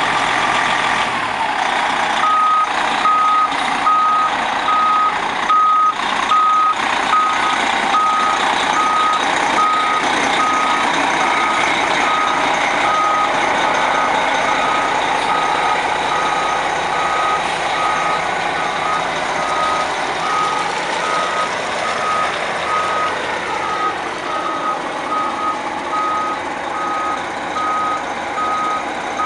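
Reverse alarm of a Prevost coach beeping on one steady pitch, roughly two beeps a second, starting about two seconds in, as the coach backs up. Its diesel engine runs underneath.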